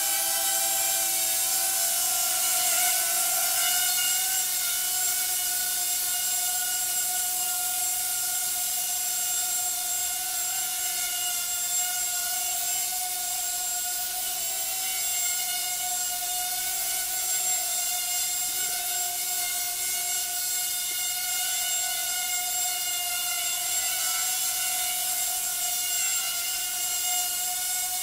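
Hubsan H107D micro quadcopter's four small motors and propellers whining steadily in flight, the pitch wavering slightly up and down as it hovers and moves about.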